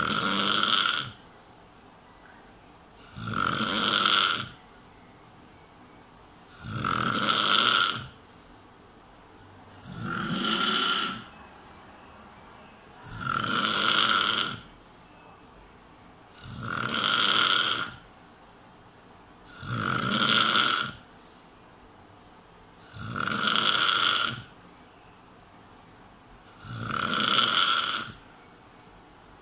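A man snoring: nine loud, high-pitched snores, evenly spaced about every three and a half seconds and each lasting about a second and a half, with quiet between them. The snore has a shrill, cicada-like pitch.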